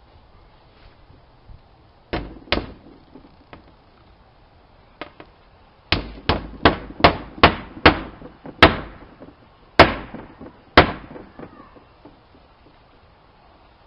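Hammer blows on wood: two strikes, a pause, then a run of about nine, the last few spaced further apart.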